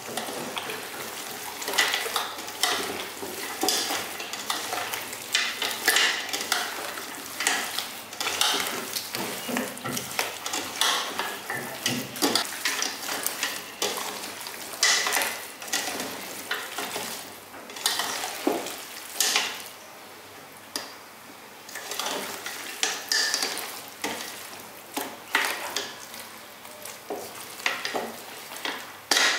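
Bare hands kneading and turning raw halved coots with spices and chopped onion in a stainless steel pot: irregular wet squelching and slapping of meat, with a quieter pause about two-thirds of the way through.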